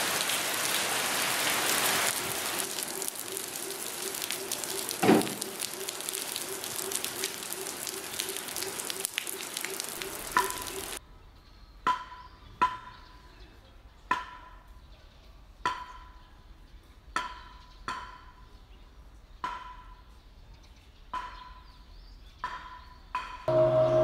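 Steady rain falling, with one sharp knock about five seconds in. The rain cuts off abruptly about eleven seconds in, and slow, regular knocks follow, about one a second, each with a short ring. Near the end a bell starts ringing.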